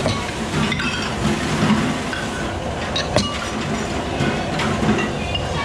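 Steady loud rumbling kitchen noise with a few sharp clinks of a metal ladle and utensils against ceramic bowls, about a second in and again around three seconds.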